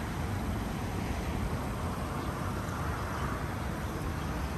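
Steady outdoor background noise: an uneven low rumble with a hiss over it, with no distinct event.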